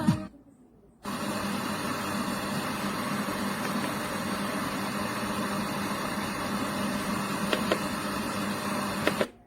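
Steady hiss with a low hum underneath, cutting in abruptly about a second in and cutting off abruptly near the end, like static from a radio speaker.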